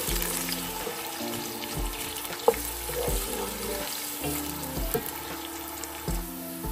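Sliced onions sizzling in hot oil in a nonstick karahi, stirred with a wooden spoon, with a sharp knock of the spoon on the pan about two and a half seconds in. Background music plays throughout.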